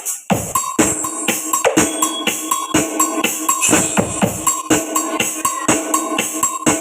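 DJ remix dance music played loud through a mini sound system during a soundcheck, with a fast, steady drum beat and a tambourine-like jingle on top.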